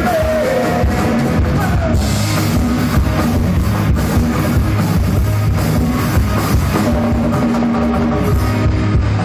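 Live rock band playing: drum kit, bass guitar and acoustic and electric guitars, heard through a phone's microphone from the crowd.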